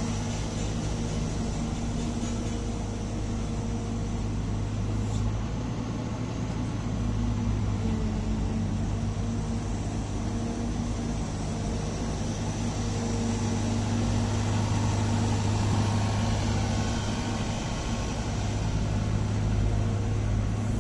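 Caterpillar 306 excavator's diesel engine running steadily, an even hum that changes little.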